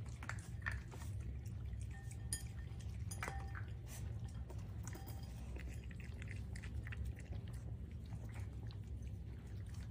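Several puppies eating from food bowls: scattered chewing and light clinks against the bowls, over a steady low hum.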